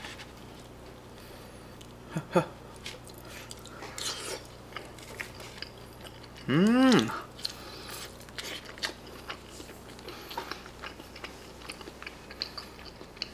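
A person chewing and biting mouthfuls of a soft, soggy pizza-cheese pork cutlet, close to the microphone, with scattered small clicks from a plastic fork and tray. About seven seconds in, a short hummed 'mm' that rises and falls in pitch.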